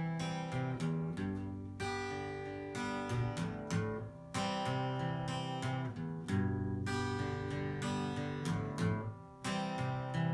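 Acoustic guitar strumming chords, each new strum struck every second or two and left to ring.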